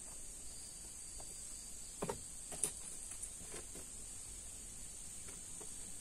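Steady, high-pitched insect chirring, with a few faint clicks and knocks about two to four seconds in.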